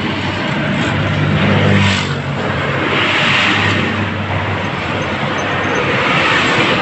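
Motor vehicle engine running steadily, with road traffic noise that swells and fades twice.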